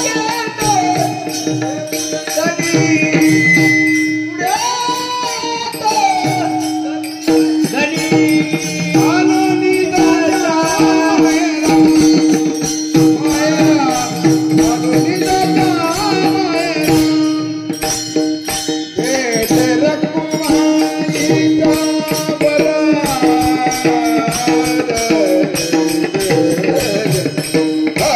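A singer performing a Marathi abhang, holding long notes with ornamented glides over a steady drone, with rhythmic percussion accompaniment.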